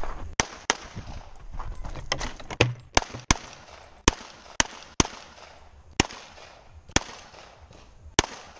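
Handgun shots fired in a practical shooting course of fire: about a dozen sharp reports, irregularly spaced, several coming in quick pairs about a third of a second apart, each with a short echo.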